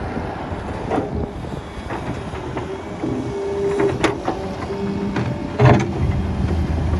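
Solar 130 crawler excavator's diesel engine running under load, with hydraulic whine and sharp metallic clanks of the bucket as it digs; the loudest clank comes near the middle, and the engine pulls harder toward the end.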